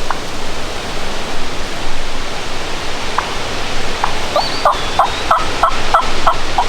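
A turkey yelping: a run of about eight short, evenly spaced yelps at roughly three a second, starting past the middle and preceded by a few single notes, over steady gusting wind noise.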